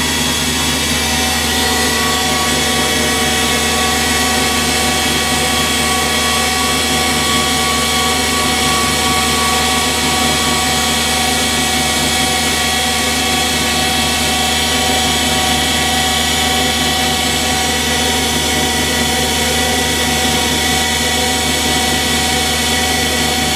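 Valve refacing machine running steadily: its electric motor and grinding wheel hum with a constant whine while a valve is ground.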